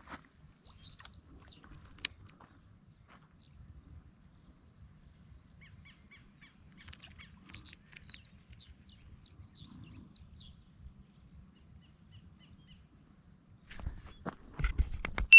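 Quiet outdoor ambience with scattered short bird chirps in the middle. A single sharp click about two seconds in, and a cluster of loud knocks and rustles near the end.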